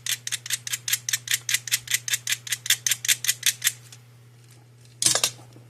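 Fast back-and-forth scraping on a thin wire, about five strokes a second, to take off a fine insulating coating that wire strippers are too big for; the strokes stop near four seconds in and one short scrape follows about a second later.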